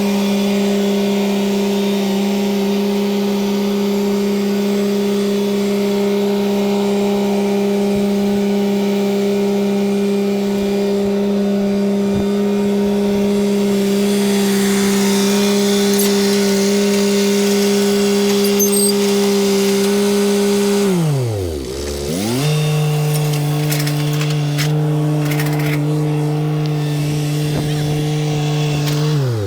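An engine running steadily at constant speed. About two-thirds of the way through its pitch drops sharply and climbs back, and it then settles at a lower steady speed.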